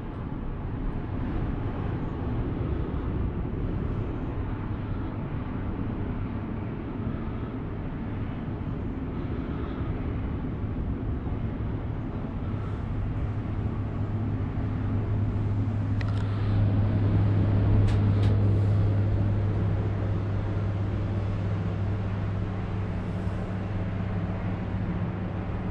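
Inside a moving Emirates Air Line cable car cabin: a steady rumble of the gondola riding along its cable, with a low hum that builds from about halfway and peaks near three quarters of the way, and a couple of faint clicks around the peak.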